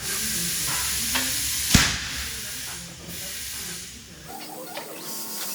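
Compressed air hissing loudly in a tire shop for about two and a half seconds, with one sharp metallic clank about two seconds in; quieter workshop clatter follows.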